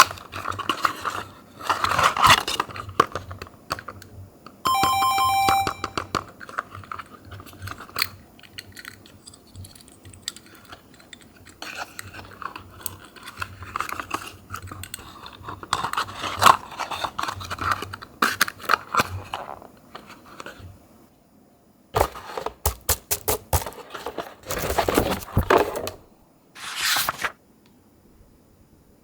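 Die-cast Tomica minicars and their small cardboard boxes being handled: irregular scraping, crinkling and clicking as cardboard flaps are worked and the metal cars slid in. A short electronic tone sounds about five seconds in, and a quick run of sharp clicks comes a little after twenty seconds in.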